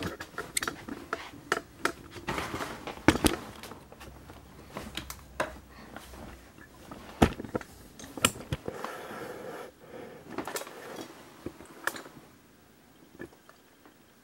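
Handling noise: irregular clicks, taps and rubbing from plastic action figures being posed and the camera being moved, with a few sharper knocks. It dies down near the end.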